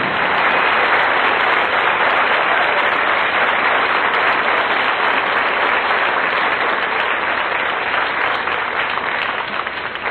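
Studio audience applauding after a song ends, dying away near the end.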